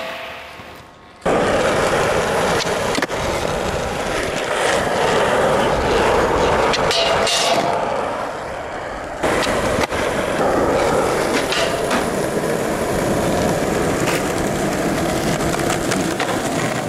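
Skateboard wheels rolling over a hard court surface, with a couple of sharp clacks of the board hitting the ground. The rolling drops away just after the start and comes back abruptly about a second in.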